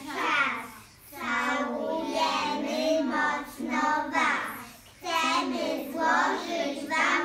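A group of young children singing together in unison, in phrases broken by short pauses about a second in and again near five seconds.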